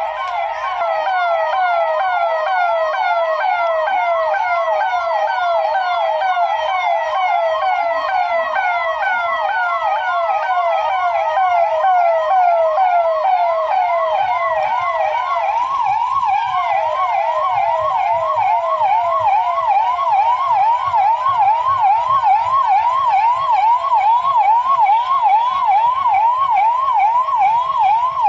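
Police vehicle siren sounding continuously in a rapid yelp, its pitch sweeping up and down about three times a second. A faint low engine rumble comes in underneath about halfway through.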